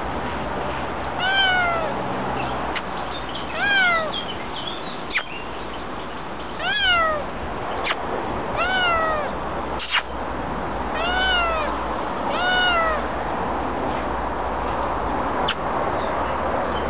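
Kittens meowing: about six high meows a second or two apart, each rising then falling in pitch. A few short clicks sound between them.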